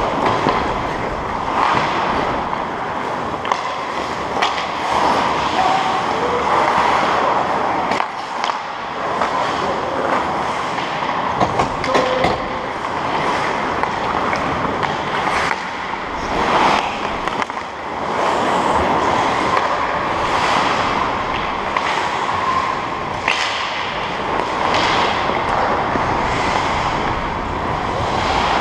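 Ice skate blades scraping and carving on rink ice close to a helmet-mounted camera, with scattered sharp clacks of hockey sticks and puck.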